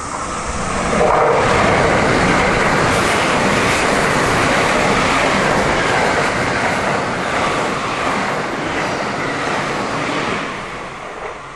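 A 681/683-series limited express electric train passing at speed. Its rushing noise comes up about a second in, holds steady and loud, and dies away near the end.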